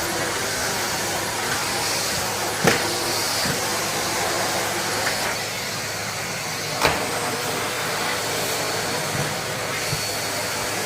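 Vacuum cleaner running steadily, with a few sharp knocks along the way.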